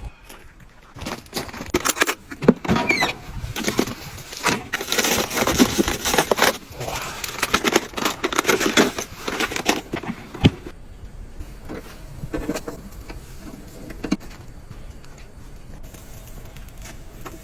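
Objects being handled close by: a busy run of clinks, knocks and rustling for about ten seconds, then quieter with a few scattered clicks.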